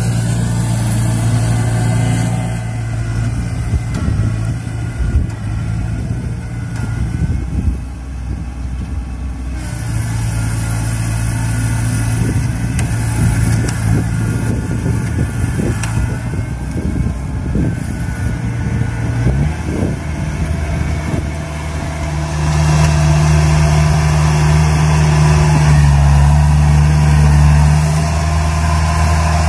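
Kubota DC-70 Plus combine harvester's diesel engine running steadily as the tracked machine drives across the rice field, with irregular knocks and clatter over the first two-thirds. About two-thirds in the engine note shifts, and it grows louder near the end.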